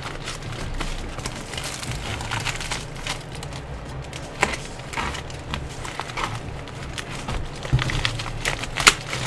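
Scissors snipping through plastic packaging, with the wrapping crinkling and rustling in irregular clicks, and one sharper snap near the end.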